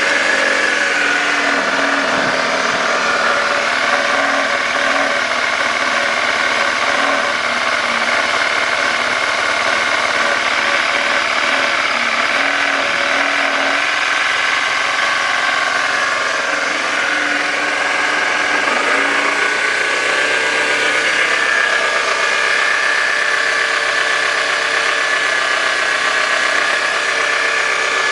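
Honda Zoomer AF58 scooter's 50cc four-stroke single-cylinder engine running steadily, with an abnormal noise put down to worn crankshaft bearings. Its note shifts slightly about two-thirds of the way through.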